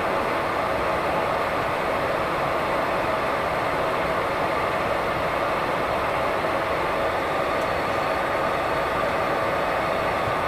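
Cabin noise of a Bombardier Dash 8-Q400 on the ground: its Pratt & Whitney PW150A turboprop engines and propellers running with a steady drone, heard from inside beside the engine.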